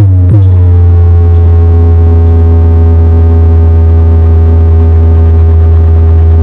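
Very loud, deep bass tone from a DJ remix track played through an 8-transistor amplifier and 40-watt speakers during a bass test. It starts with a quick falling pitch sweep, then holds steady as one sustained bass note with higher tones above it.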